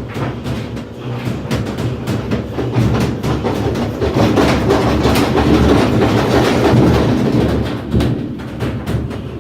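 Washing machine running with a loud rumble and rapid, rattling knocks, like a train's clickety-clack, growing louder a few seconds in and easing back near the end.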